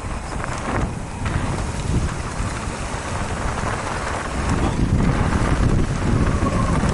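Wind buffeting the microphone, with tyre and trail rumble from a mountain bike riding the trail, growing louder about four to five seconds in.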